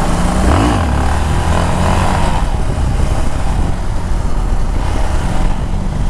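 Yamaha XT660's single-cylinder four-stroke engine pulling under throttle as the motorcycle rides a wheelie, with a quick rise and fall in revs about half a second in. Wind rushes over the microphone throughout.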